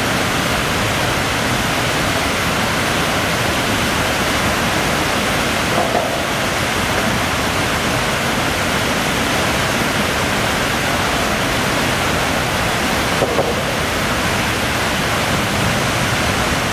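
Turbulent whitewater churning and foaming in a steady, loud rush.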